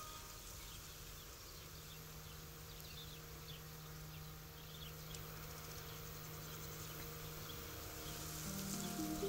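Faint insects buzzing and chirping, with short high chirps over a steady low hum.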